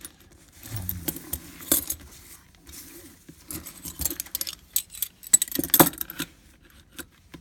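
Metal handcuffs being handled, their chain links and cuffs jangling and clinking in irregular bursts, loudest about six seconds in.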